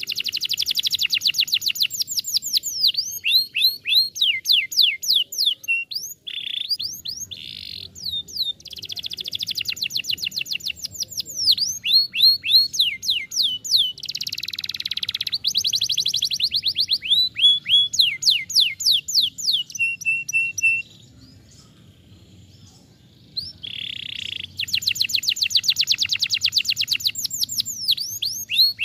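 Domestic canary singing a long song of fast trills, each a rapid string of repeated sweeping notes, changing from one trill to the next. There is a pause of about two seconds roughly three-quarters of the way through.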